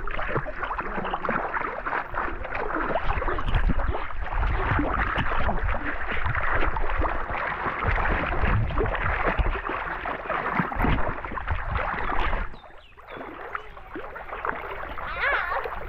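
Heavy splashing and churning of water right at the microphone where a chain line is being pulled through it, typical of a hooked fish thrashing on the line. The splashing drops away suddenly near the end, then picks up again more lightly.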